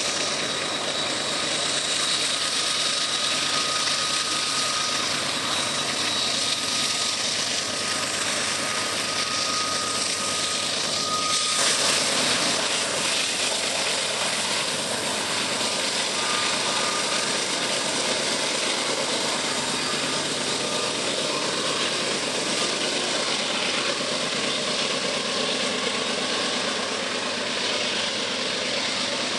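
Heavy Canadian Pacific freight train passing close: its diesel locomotives work under load climbing a grade, and a long string of loaded grain hopper cars rolls by. A steady high whine runs through the first ten seconds or so, and the sound changes abruptly about eleven seconds in.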